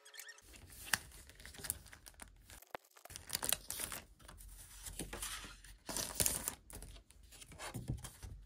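Paper cards and a plastic wrapper rustling and crinkling as greeting cards are taken out and handled, in bursts with sharp crackles, starting about half a second in.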